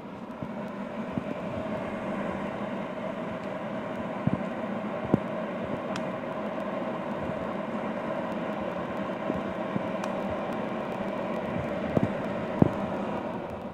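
Vintage Helen Curtis hood hair dryer's blower running steadily, a fan whir with a constant hum, with a few light clicks of handling. It quietens near the end.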